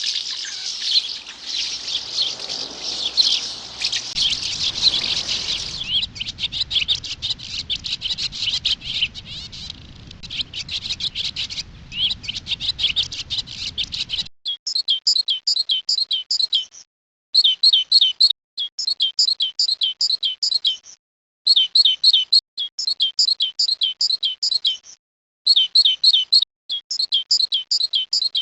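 Small songbirds chirping: a dense, continuous twittering at first, then, about halfway through, a single bird repeating a quick, high, trilled phrase of one to two seconds with short pauses between phrases.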